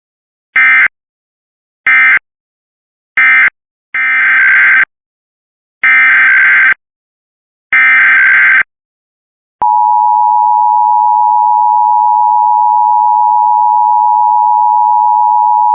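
Emergency Alert System SAME data bursts, a harsh electronic warbling buzz. First come three short end-of-message bursts that close the previous test. Then three longer header bursts open the next alert, and about two-thirds through the steady EAS attention tone begins and holds.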